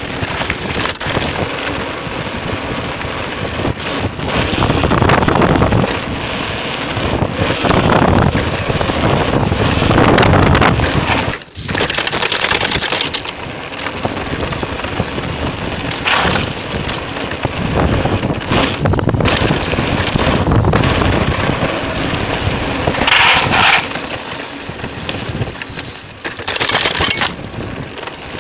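Mountain bike riding fast downhill over dirt, pavement and cobbles: wind buffeting the chest-mounted camera's microphone, mixed with tyre rumble and the bike clattering over bumps.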